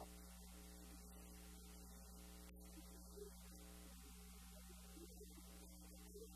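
Near silence: a faint, steady electrical hum, with a few faint, soft sounds over it.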